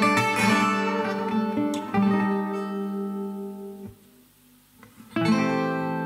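Background acoustic guitar music: plucked notes and strummed chords that ring out. About four seconds in they fade to a brief near-silent gap, then another chord is strummed.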